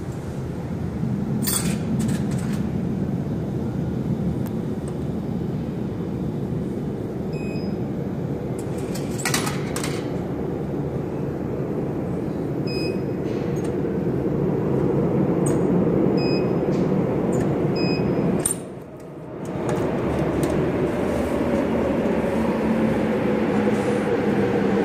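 Low, steady rumble of a subway station that builds over the second half as a train approaches, with a few sharp clicks and faint short beeps on top.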